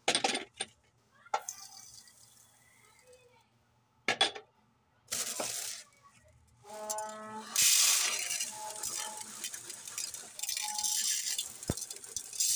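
Dry split lentils rattling as they are poured, in several short bursts and a longer stretch near the end.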